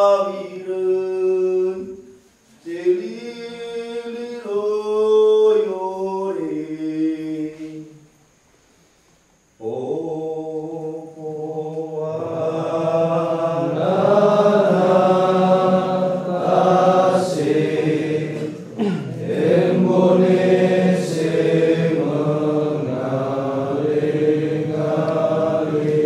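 Minahasa ritual chant sung by men's voices. One voice sings rising and falling phrases, breaks off briefly about eight seconds in, then several voices chant together, filling out from about twelve seconds on.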